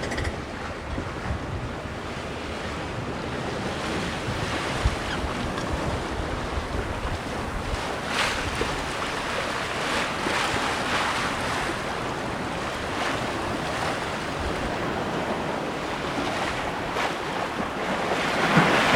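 Lake water washing past the hull of a sailboat under way, with a few louder swishes of passing waves, and wind buffeting the microphone.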